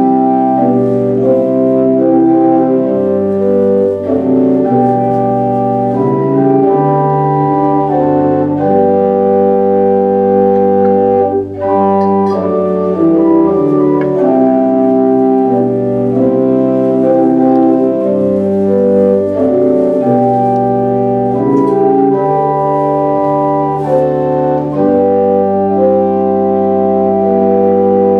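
Organ playing slow offertory music in held chords that change every second or two, with a brief break between phrases about eleven seconds in.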